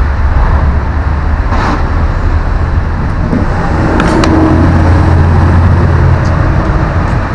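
Loud, steady low rumble, with two short sharp snaps about one and a half and four seconds in: the brittle plastic spacer of an electric fan motor cracking as it is cut.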